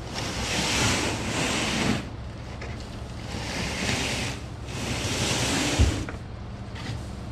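Wind and road noise while riding in a moving truck: a steady low drone under three swells of rushing air, with one sharp thump late on.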